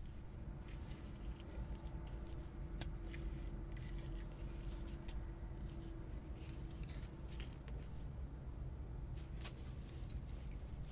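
Dry plant fibres being handled, giving irregular rustling and scraping strokes, with a faint steady hum in the first half or so.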